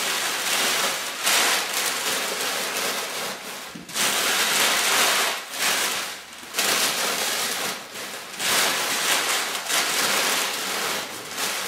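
Sheets of packing paper being crumpled and pressed into the top of a carton as a cushioning layer, a dry crackling rustle coming in four or five bursts with short pauses between them.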